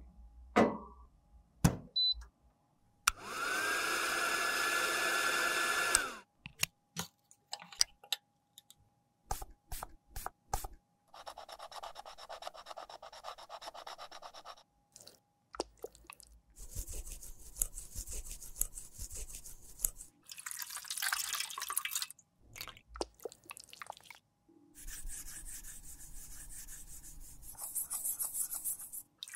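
A run of makeup-repair sounds with no speech. Near the start a small appliance motor runs for about three seconds with a steady whine. In the middle a metal spatula scrapes in a clear plastic compact, and near the end tap water runs as the compact is rinsed in a steel sink.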